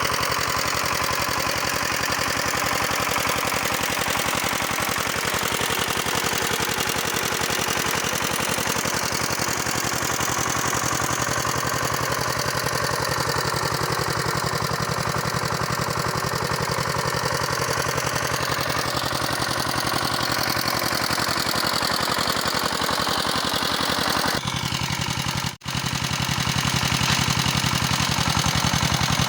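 Walking tractor's engine running steadily under load while pulling a disc plough. About 25 seconds in, the sound cuts out for an instant and comes back slightly changed.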